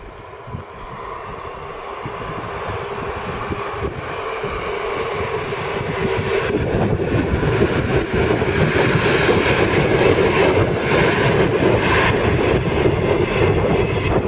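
DB class 218 diesel-hydraulic locomotive hauling double-deck coaches as it approaches and passes. Its engine drone and rolling rumble grow steadily louder over the first several seconds, then hold loud and steady as the train goes by.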